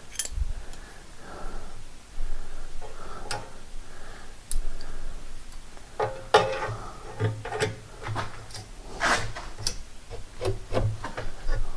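Steel masonry props being handled and adjusted: irregular scraping, rubbing and sharp metal clicks and knocks, busier in the second half.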